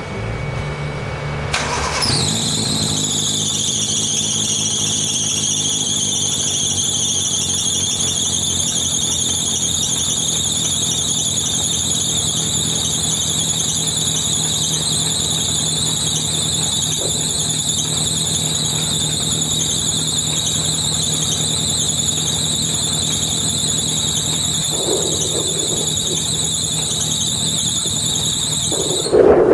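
Toyota 4E-FTE turbocharged four-cylinder catching about two seconds in and idling steadily. Over the idle runs a loud, steady high-pitched whine that settles in pitch just after the start and stops near the end.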